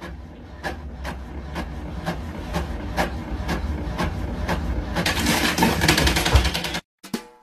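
Epson inkjet printer printing a page: a low steady motor hum with a regular tick about twice a second as the print head moves, then a louder, noisier stretch as the page feeds out, cut off suddenly near the end.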